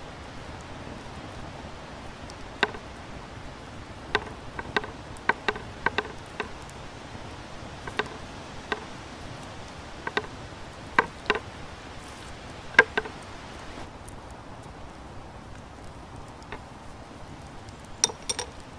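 Wood fire burning with a steady hiss and irregular sharp crackles and pops, about a dozen of them, the loudest about two-thirds of the way through.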